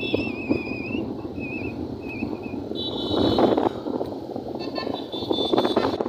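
Road and engine noise from riding in a moving vehicle, with wind buffeting the microphone. A high wavering whistle sounds through the first two and a half seconds, and short high steady tones come about three seconds in and again near the end.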